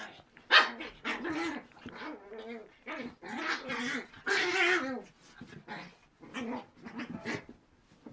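Eight-week-old puppies play-fighting, making a run of growls and yips with wavering pitch. The run is loudest in the first five seconds and thins out after that.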